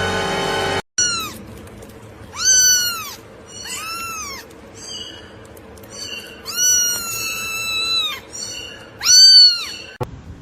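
A cat meowing repeatedly, about six rising-and-falling meows, one drawn out for about two seconds, the loudest near the end.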